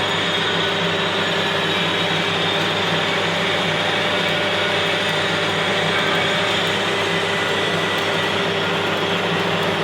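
Stick (shielded metal arc) welding a straight bead: a steady, even hiss of the arc over a constant electrical hum from the welding machine.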